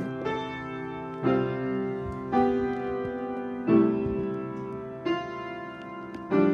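Background music: slow piano-like keyboard notes or chords, a new one struck about every second and a quarter, each ringing and fading before the next.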